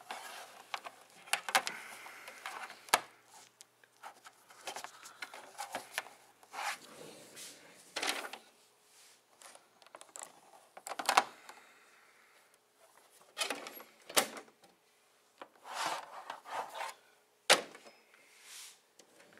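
Plastic action figures and a toy truck being handled and moved on a plastic play mat: irregular clicks, taps and short scrapes, with a few sharper knocks, the loudest near the end.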